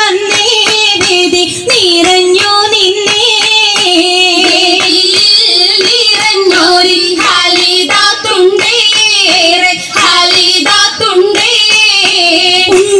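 A song with high female or child voices singing a melody over a regular percussive beat.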